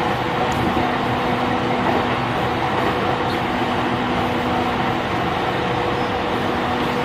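JR East E531 series electric train running at steady speed, heard from inside the car: an even rumble and rush of wheels on rail with a faint steady hum.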